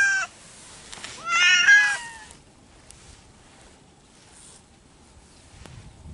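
Cat meowing twice: a high call that ends just after the start, then a longer meow about a second in whose pitch bends and falls away at the end.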